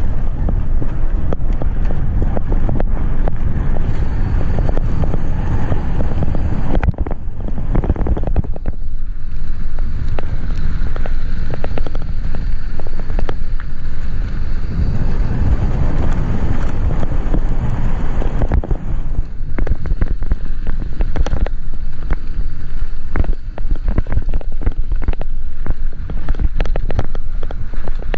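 Wind rushing over an action camera's microphone as a mountain bike rides a dirt road, with the rumble of tyres on gravel and many small clicks and rattles from the bike.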